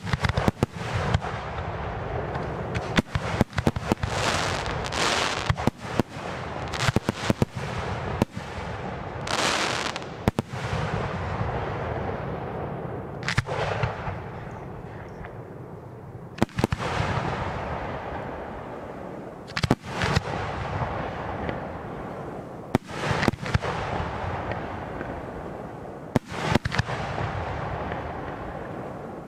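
Aerial fireworks display: shells bursting as sharp bangs every second or two, sometimes in quick clusters, with hissing effects between them over a continuous rumble of echoing bursts.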